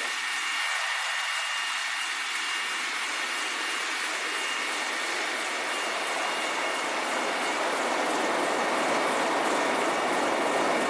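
MH-53E Sea Dragon helicopter's three turboshaft engines and rotor running, heard from its cargo ramp: a steady rushing noise with a thin high turbine whine, growing a little louder in the second half.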